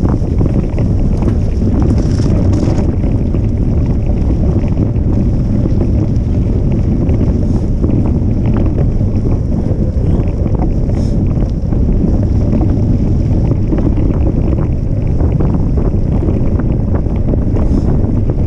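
Steady wind rush over the microphone of a camera riding on a moving mountain bike, mixed with tyre noise and small rattles from the dirt road.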